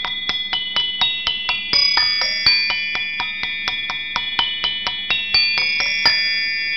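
Music of high, bell-like chiming notes struck about four times a second, each ringing on over the next, with the strikes thinning out near the end.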